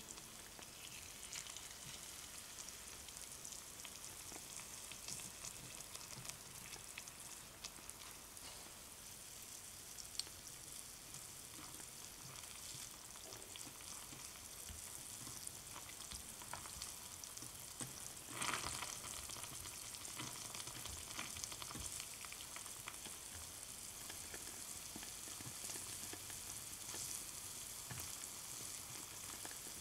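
Batter-coated bamboo shoot pieces deep-frying in a tiny pan of oil: a steady fine crackle of sizzling oil, with a louder surge of sizzling about two-thirds of the way through.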